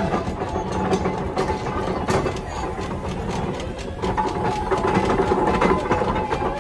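Steam engine running in a parade, a rapid mechanical clatter of knocks over a low rumble. A faint steady whistle-like tone joins about two-thirds of the way through.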